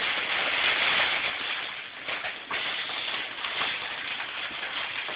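A fabric cat tunnel rustling and crinkling as it is handled and lifted with a cat inside: a rough, scratchy rustle that swells and fades, with a short break a little after two seconds in.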